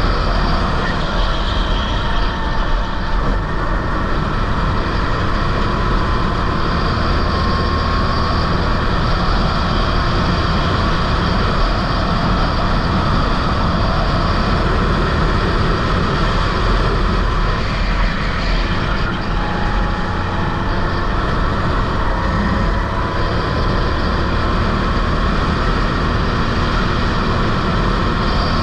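Rental go-kart engine running hard through a race lap. Its pitch rises and falls slowly as the kart accelerates and slows for the corners.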